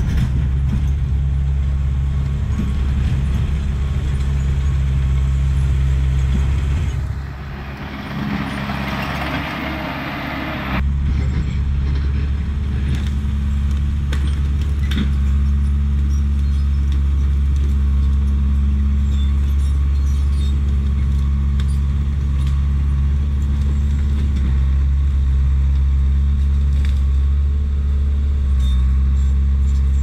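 Diesel engine of a 1988 Caterpillar D4C bulldozer running steadily under load as it works shale gravel. From about 7 to 11 seconds in, a loud rushing hiss stands out while the engine's low note drops.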